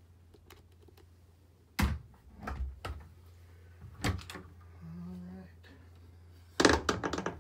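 Wooden cabinet doors and their latches being handled: a loud knock about two seconds in, a few more knocks, and a quick run of clicks and knocks near the end, over a steady low hum.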